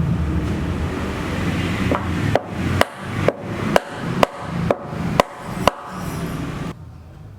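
Background music with a steady, sharp clicking beat about two beats a second over a sustained low tone, cutting off near the end.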